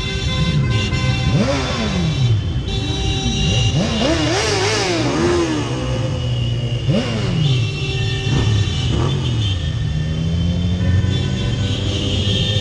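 Sport motorcycles riding in a group, their engines revving up and dropping back again and again as they accelerate and change gear, with several engines sounding at once.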